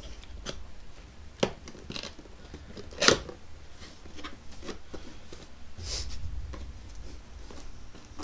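Knife cutting through cardboard packaging and the box being pried open: scattered scrapes and clicks, with a sharp crack about three seconds in.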